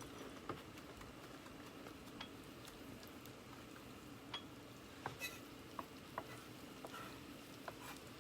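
Onion and garlic frying in olive oil in a pan: a faint, steady sizzle with scattered light clicks and taps.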